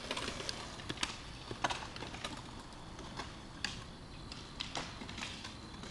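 Irregular sharp clacks and knocks of skateboards on concrete, about eight in all, scattered over a low, steady background noise.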